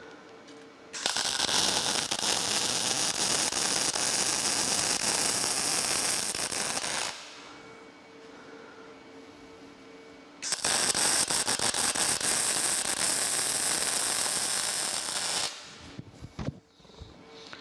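MIG welder arc laying weld beads on steel: a steady crackling sizzle for about six seconds, a pause, then another run of about five seconds, with a few short clicks near the end.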